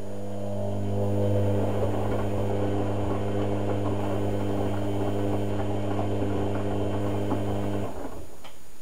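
Hotpoint Ultima WM72/76 washing machine's drum motor turning the drum during a boil wash: a steady hum with the laundry tumbling inside, stopping abruptly about eight seconds in, then a faint click.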